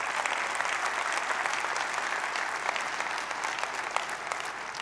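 Large audience applauding, a dense run of clapping that begins to die away near the end.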